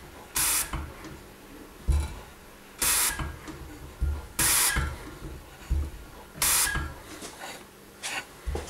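Diesel injector on a hand-lever pop tester spraying in four short hissing bursts, each a moment after a low thud of the pump stroke. The injector opens well below its 135-bar setting.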